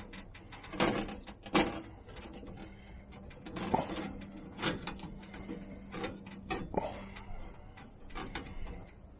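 Smoked sockeye salmon being pried by hand off a metal smoker grate, the skins sticking to the bars: irregular scrapes, clicks and clinks of the wire grate. The two loudest knocks come about one and one and a half seconds in.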